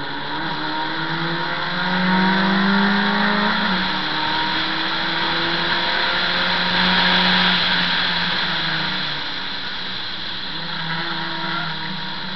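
A 1300 cc class race car's engine at high revs, pulling hard on track; its note drops sharply about three and a half seconds in and falls again near the end as the car slows for a corner. A steady rush of wind and road noise runs under it.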